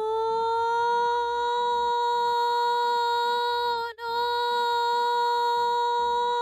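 A woman's voice holding a long, steady, high "noooo" in imitation of a fire truck siren. The note scoops up at the start, breaks briefly with a dip in pitch about four seconds in, then holds again.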